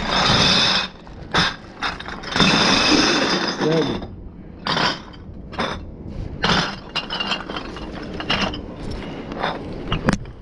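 Plastic bags full of empty glass bottles clinking and rattling as they are hefted onto a box truck, with the bags rustling. Two longer bursts of clatter come in the first four seconds, then a run of shorter clinks.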